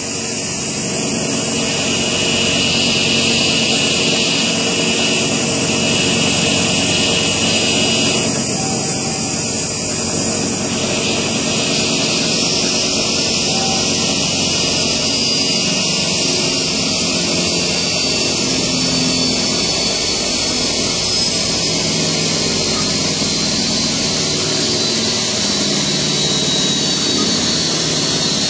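MS Bead Mill 1L type B, a horizontal lab bead mill, running: a steady machine whine with several high steady tones over a noisy hum. The level rises over the first two seconds and then holds steady.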